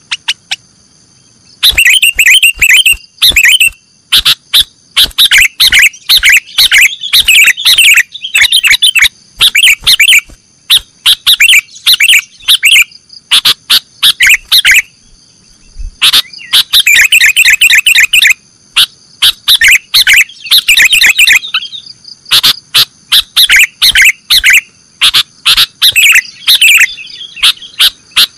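Sooty-headed bulbul singing in the excited, continuous 'nggaruda' style used for lure recordings. It gives loud runs of rapid, high chirping notes in phrases of a second or more, with only short breaks between them.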